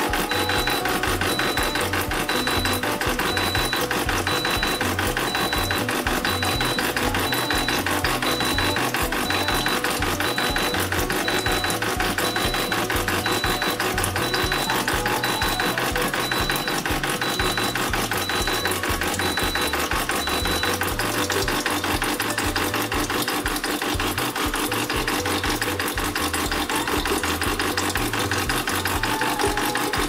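Vibratory pump of a DeLonghi Dedica EC685 espresso machine buzzing steadily as it pushes liquid through the machine during a descaling cycle.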